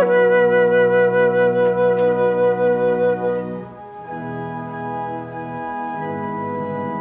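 Flute and organ playing a hymn tune. The flute holds a long note with vibrato over sustained organ chords and stops about three and a half seconds in, after which the organ carries on alone, softer, with held chords changing.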